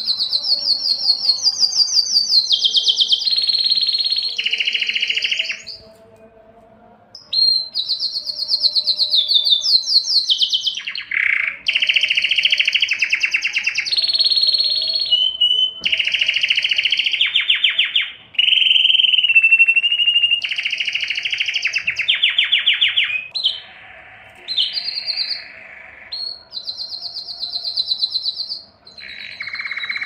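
Male domestic canary singing a long courtship song. The song is made of fast trills of rapidly repeated notes, each held for one to three seconds before jumping to a new pitch, with a short break about six seconds in.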